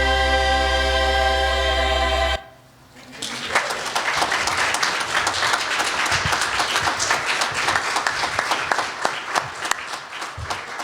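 The last held chord of the song's music cuts off about two seconds in. A moment later the congregation breaks into steady applause.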